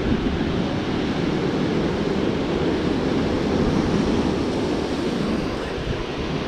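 Surf washing up the beach, a steady rush with no break, with wind rumbling on the microphone.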